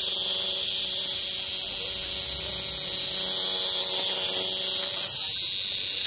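A cicada held in the hand gives a loud, steady, harsh buzz, the distress call of a handled cicada. The buzz dips briefly about five seconds in.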